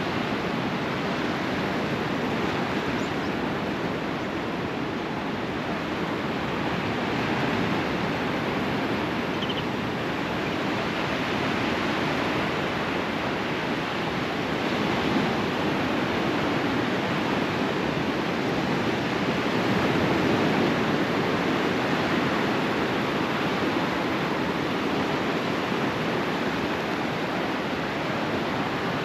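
Sea waves breaking and washing on the shore: a steady rushing noise that swells a little louder and eases off every several seconds.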